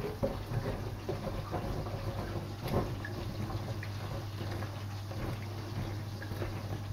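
Lemon being squeezed by hand, its juice running into a small plastic cup, with scattered small clicks and knocks and one sharper tick near the middle, over a steady low hum.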